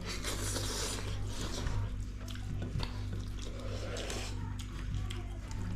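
Close-up eating sounds: wet chewing, slurping and small clicks of food being mixed and eaten by hand, over quiet background music.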